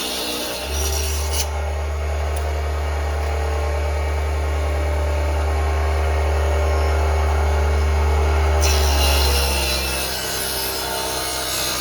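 Mini bench table saw running and cutting wood, its motor humming steadily and growing slightly louder until about nine seconds in, then easing off.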